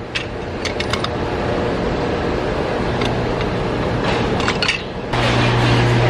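Loose brass fittings and valves clinking against each other as a gloved hand sorts through a bin of scrap metal, in scattered light clicks. About five seconds in, a steady low machine hum starts and runs louder than the clinks.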